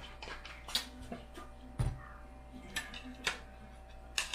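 A plastic soda bottle set down on a table with a dull knock, and light clicks of metal chopsticks against a ceramic plate as noodles are picked up, about five separate clicks over a faint steady hum.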